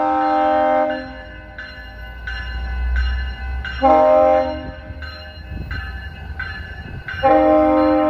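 Sounder commuter train's diesel locomotive sounding its multi-chime horn for a grade crossing: a long blast ending about a second in, a short blast about four seconds in, and another long blast starting near the end. Between the blasts the train rumbles past and the crossing signal bells ring.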